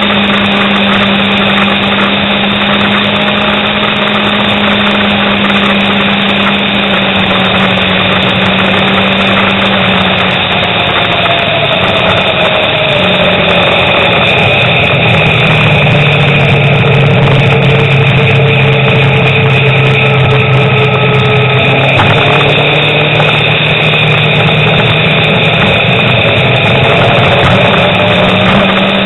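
Motorcycle engine running at road speed under a steady rush of wind. Its note drops in pitch about ten seconds in as the bike slows for a junction, holds lower for a while, then climbs again near the end as it speeds back up.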